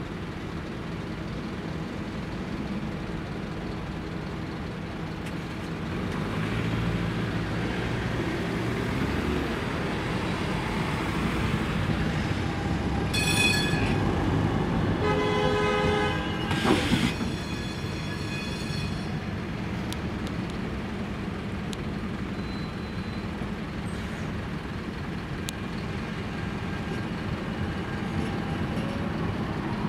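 Trams and road traffic moving through a city intersection, with a steady traffic din that swells as a tram passes. About 13 seconds in, a tram's warning signal sounds briefly, then again for several seconds, with one sharp knock near its end.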